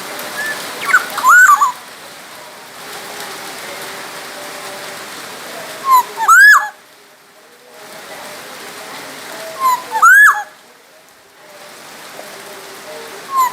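Black-naped oriole (kepodang emas) giving loud fluty whistled calls: four phrases about four seconds apart, each a short note followed by an upward-swooping whistle. A steady hiss runs beneath them.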